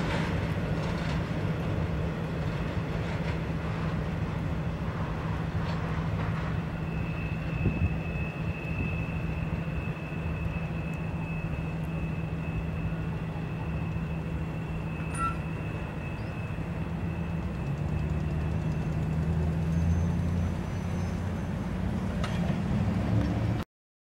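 Intermodal freight train rolling away past a grade crossing: a steady low rumble of the train, with a faint high steady whine through the middle. The sound cuts off suddenly near the end.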